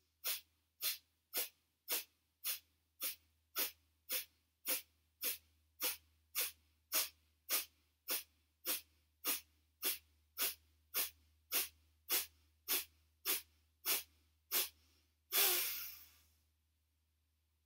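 Kapalabhati yoga breathing: a run of short, forceful exhalations through the nose at about two a second. The run ends with one longer, louder breath about fifteen seconds in.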